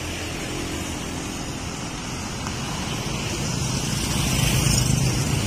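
Road traffic with motorcycles approaching, their engines running steadily and growing louder over the last couple of seconds.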